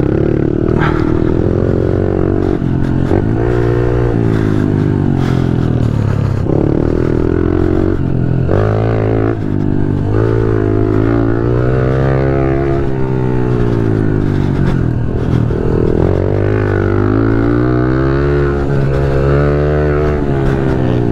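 Pit bike's small single-cylinder engine ridden hard, its revs rising and falling over and over as the throttle is opened and shut.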